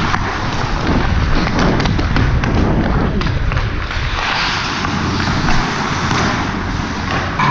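Ice hockey skates scraping and carving on the ice, with the stick blade clacking sharply against the puck several times, over a constant rush and rumble of wind on a camera carried at skating speed.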